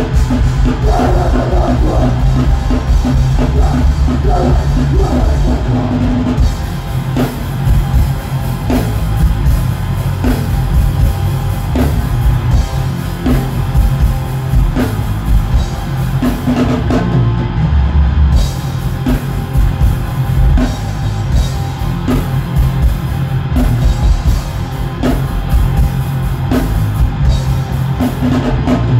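Heavy metal band playing live at full volume: electric guitars and a fast-hit drum kit, heard from the audience floor.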